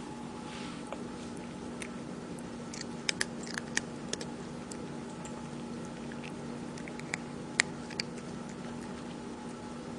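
Cat eating: scattered small clicks and smacks of chewing, bunched about three seconds in and again near eight seconds, over a steady low hum.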